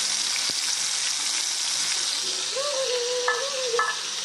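Fish steaks frying in hot oil in a pan, a steady sizzle.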